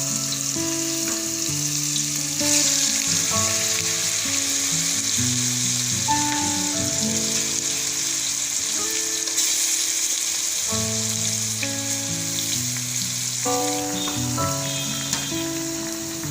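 Chicken pieces frying in plenty of hot oil with browned onions in a kadai, a loud steady sizzle with stirring. The sizzle grows louder about two and a half seconds in and again near ten seconds in. Background music plays underneath.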